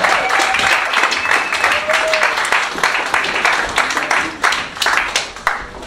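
Audience applauding, with dense clapping and a few voices calling out over it; the applause dies down near the end.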